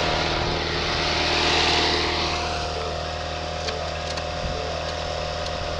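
Garden tractor engine running at a steady idle, with a hiss over the first two seconds and a few faint ticks in the middle.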